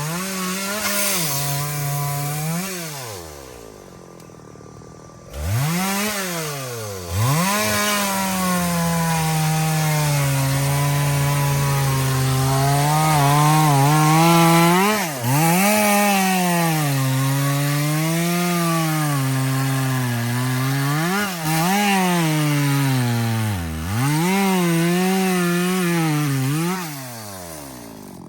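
Two-stroke chainsaw cutting into a large kapok trunk, its engine note sagging and climbing again and again as the chain bites and frees in the wood. The saw drops off briefly about three seconds in, revs back up, and falls away near the end.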